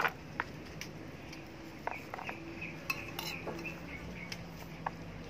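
A metal spoon clinking and scraping against a plate at irregular intervals as rice is spooned out.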